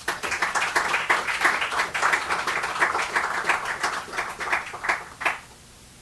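Small audience applauding, the claps dying out a little after five seconds in.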